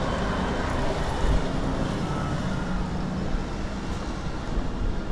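City street noise: a steady rumble of road traffic, with a low engine hum underneath.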